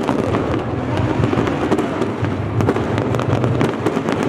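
Fireworks display going off continuously: many sharp pops and bangs in quick succession over a dense, steady crackle.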